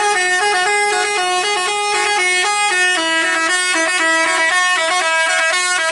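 Bus 'telolet' horn of the Basuri type, a multi-trumpet air horn, playing a melody: a quick string of loud held notes stepping up and down in pitch without a break.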